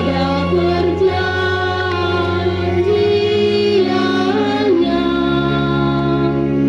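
A church choir singing a slow sung part of the Mass liturgy, with long held low accompaniment notes beneath the voices that change pitch a few times.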